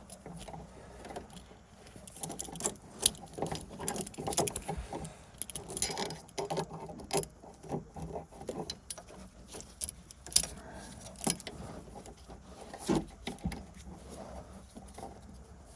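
Irregular metallic clicks and clinks of a hand tool working a brake flex-line fitting as it is tightened the last little bit.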